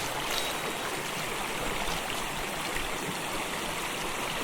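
River water rushing steadily over rocks, an even, unbroken flow.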